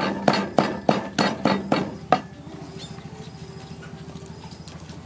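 Kitchen chopping: a blade striking a cutting board in a steady rhythm of about three strokes a second, stopping a little over two seconds in.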